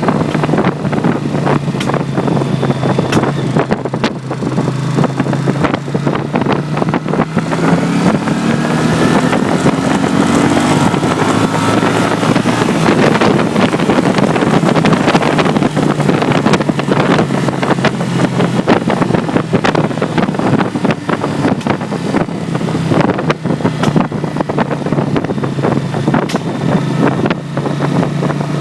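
Honda CX 500 water-cooled V-twin running while the bike is ridden, with wind on the microphone. The engine note rises between about 8 and 16 seconds in, and many sharp crackles and pops run through it: the cracking and popping this bike makes on overrun when the throttle is closed and it rolls.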